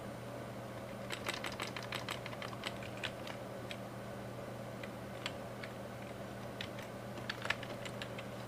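Computer keyboard typing: scattered key clicks in short bursts, thickest in the first few seconds and again near the end, over a steady low hum.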